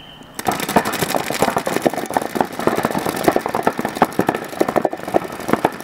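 Several electronic paintball markers firing rapid streams at once, a dense rattling patter of shots that starts about half a second in and keeps going. A short high tone sounds right at the start.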